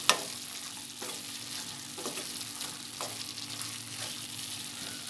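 Keema with tomatoes sizzling in an aluminium pan while a spatula stirs it, scraping the pan about once a second. A sharp tap of the spatula against the pan just after the start is the loudest sound.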